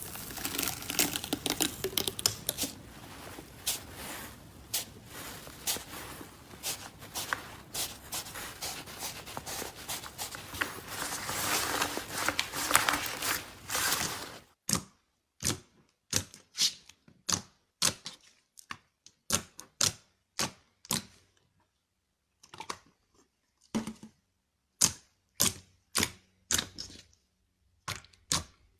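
Slime being squeezed and poked by hand, giving off clicks and pops: a dense crackling run for about the first half, then, after an abrupt change, separate sharp clicks about one or two a second with silence between.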